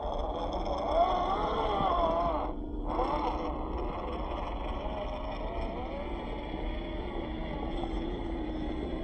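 Electric motors and gear drives of RC crawler trucks whining, the pitch rising and falling with the throttle as they climb loose gravel. The whine cuts out briefly about two and a half seconds in, then goes on more faintly.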